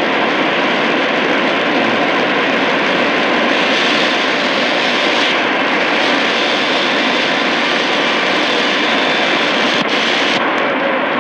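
Shortwave static hiss from a Tecsun PL-880 portable receiver scanning up the 41-metre band between stations. The rushing hiss shifts in tone a few times as the frequency steps on, with a short click near the end.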